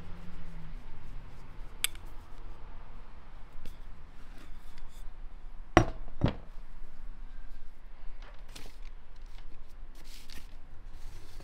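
Quiet handling of raw dough and kitchenware, with scattered light clicks and two sharp knocks about six seconds in, half a second apart, the loudest sounds here.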